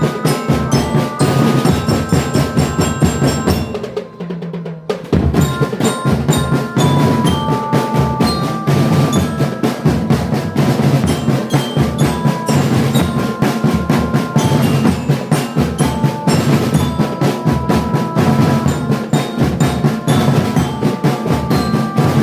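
Marching drum band playing live: rapid snare drum patterns and bass drum beats under a glockenspiel-type mallet percussion melody. The drumming drops out briefly about four seconds in, then the full band comes back in.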